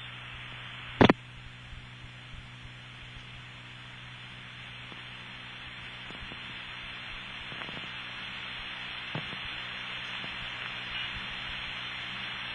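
Telephone line hiss with a steady low hum on an open line held on a step-by-step office's local trunk circuit after the TSPS trunk has dropped. A sharp click about a second in and a few faint ticks; the hiss slowly grows louder.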